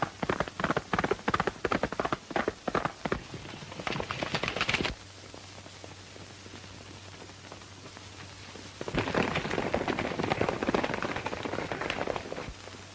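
Horses galloping on hard ground over the hiss and hum of an old film soundtrack. A fast run of sharp hoofbeats lasts about five seconds, then only the hiss is heard. From about nine seconds in comes a denser clatter of several horses galloping, which fades near the end.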